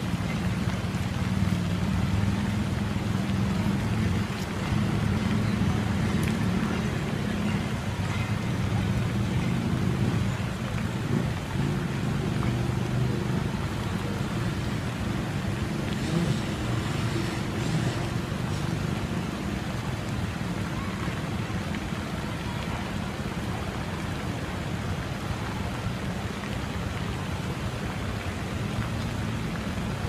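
Fountain jets spraying and splashing into a lake: a steady rushing hiss of falling water, with a steady low rumble underneath.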